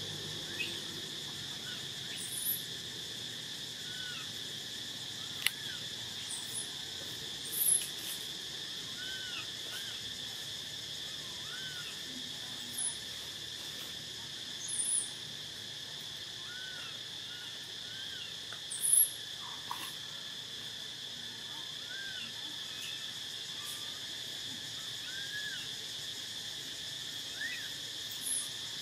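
Steady high-pitched drone of forest insects, with short chirps every second or two and a few brief shrill squeaks, the loudest about 8 and 19 seconds in.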